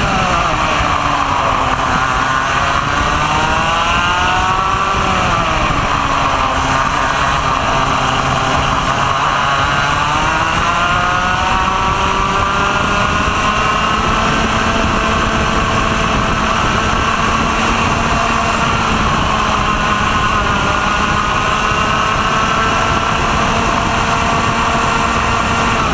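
Two-stroke racing kart engine at speed, heard from on board: its revs drop and recover twice in the first six seconds, then climb steadily and hold high through a long straight, with constant wind noise.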